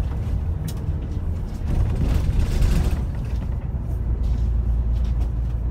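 Low, steady engine and road rumble heard from inside a moving bus, with a brief hiss about two seconds in.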